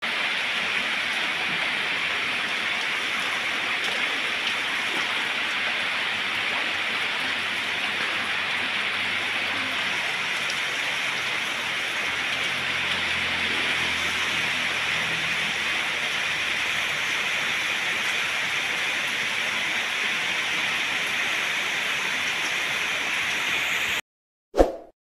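Steady rushing hiss of heavy rain and flowing floodwater from an overflowing river. It cuts off suddenly near the end, and a short chime follows.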